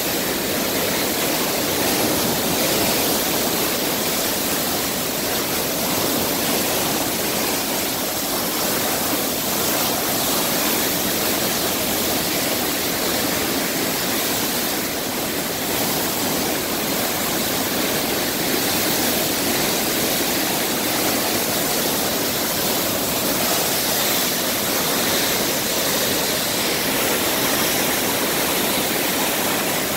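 Steady rush of high-volume water released from the dam at Benbrook Lake, churning as whitewater in the concrete outlet channel. The lake is 15 ft above normal, so this is a flood release.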